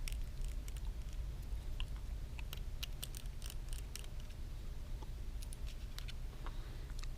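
Light, scattered clicks and taps from small repair tools and phone parts being handled, over a steady low hum.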